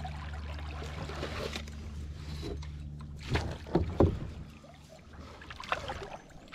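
A hooked catfish being netted beside a kayak: water splashing and sharp knocks against the boat, loudest about three to four seconds in.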